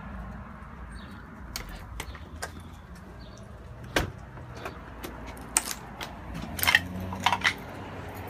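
Footsteps and scattered clicks and knocks of a person walking across a tiled porch and heading down its steps, with a cluster of louder knocks near the end, over a low steady background rumble.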